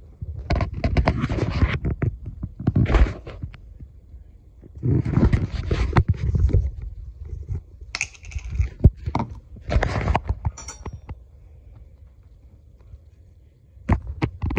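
Handling noise: bursts of scraping, rubbing and knocking as a jar of chocolate spread is opened and a table knife is dug into it on a countertop, with the phone being moved about. A few sharp clicks near the end.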